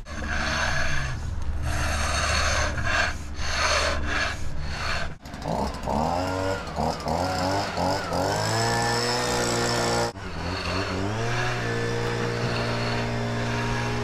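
A concrete groover on a long pole handle is scraped back and forth over fresh concrete to cut a control joint, making short rasping strokes with brief gaps between them. From about five seconds a pitched hum joins in; it slides up and down, then settles into steady held tones near the end.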